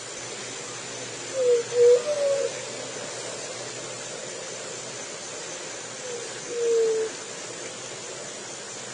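Juriti (Leptotila dove) cooing: a short run of low hooting notes about a second and a half in, then one longer, slightly falling hoo about six seconds in, over a steady background hiss.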